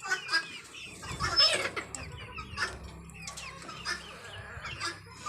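Chickens clucking in short scattered calls, with a few sharp clicks among them.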